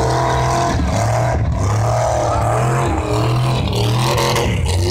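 Loud off-road truck engines running and revving, their pitch rising and falling, as lifted trucks drive through a mud pit.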